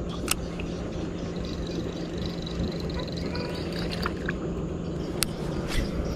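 A steady low hum over a noise haze, with a faint high wavering animal call from about one and a half to three seconds in, and a few sharp clicks, one just after the start and two near the end.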